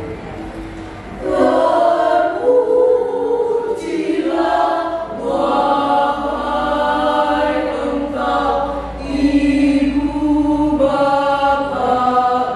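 Women's choir singing in harmony with long held notes, swelling to full voice about a second in.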